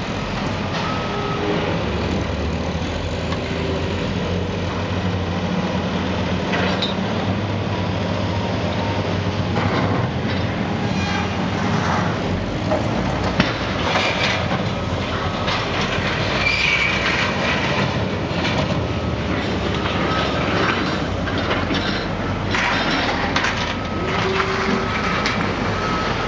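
Heavy demolition machinery, a tracked excavator and a wheel loader, with diesel engines running steadily under scattered clanks and crunches of debris being worked, and a few brief squeals.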